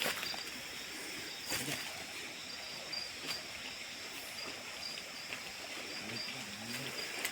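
Outdoor night ambience: a steady, high, slightly pulsing insect trill over a soft hiss, with a few brief scuffs about one and a half and three seconds in.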